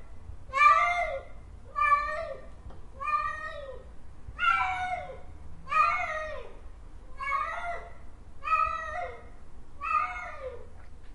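Domestic cat meowing over and over, about eight meows roughly one every second and a half, each rising and then falling in pitch.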